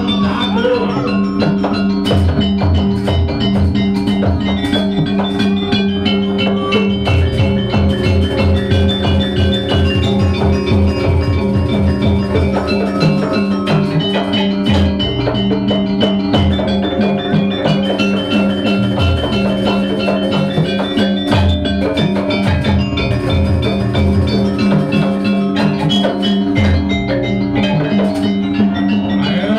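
Jaranan gamelan music: struck metal mallet instruments ring out a repeating melody over steady held low tones, with drums beating in quick runs.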